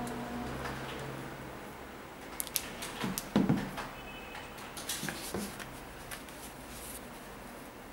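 Hands handling a suede high-top sneaker and its box: scattered clicks and rustles, with a low thump about three and a half seconds in as the shoe is set down on the box, then the rustle of a black cloth being handled.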